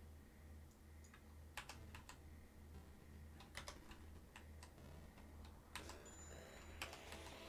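Faint computer keyboard keystrokes and clicks, about nine scattered presses, some in quick pairs, over a steady low electrical hum. A rising swish sets in right at the end.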